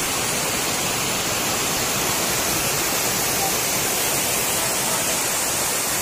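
Steady rush of water tumbling over rocks in the stream below a waterfall.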